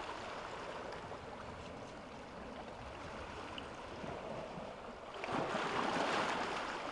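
Small waves washing in over a pebble beach and draining back through the stones, the surf swelling louder about five seconds in.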